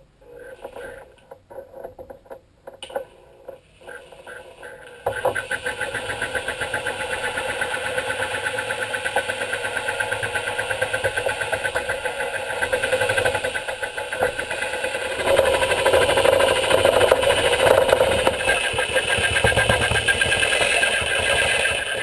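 Handheld electric sheet-metal shears cutting aluminum sheet: a few short bursts in the first seconds, then the motor and blades run continuously with a rapid chatter, louder over the last several seconds.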